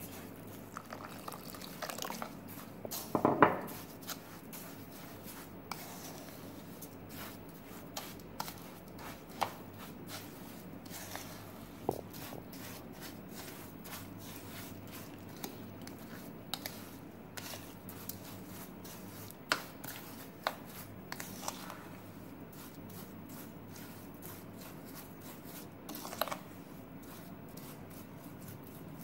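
A hand mixing and squishing a wet paste of grated coconut, milk powder, sugar and water in a bowl. Soft squelches and scattered light clicks, with water poured in at the start and a louder wet sound about three seconds in.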